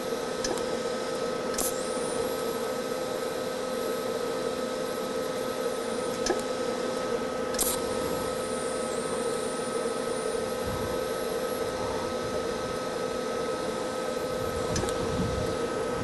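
TIG welding arc on a car's sheet-steel body panel, filler rod being added to build up metal and close an old trim hole: a steady hiss with a constant buzzing hum, broken by a few brief sharp clicks.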